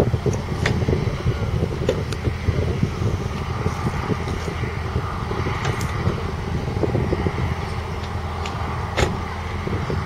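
Deutz-Fahr 5660-HTS combine harvester's 6.1-litre six-cylinder diesel running steadily with a dense low rumble, and a few sharp clicks over it.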